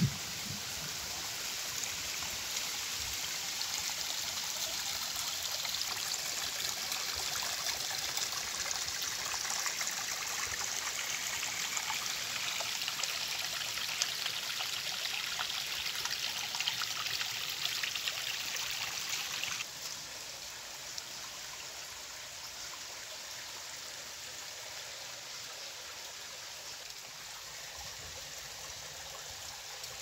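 Shallow forest stream trickling over rocks, a steady rush of running water. About two-thirds of the way through it drops suddenly to a quieter trickle.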